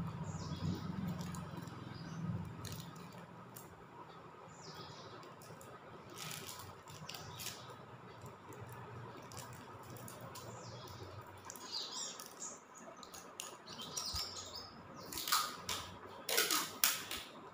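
Clear packing tape pulled off its roll in two or three sharp, screeching rips near the end. Faint bird chirps come and go in the background.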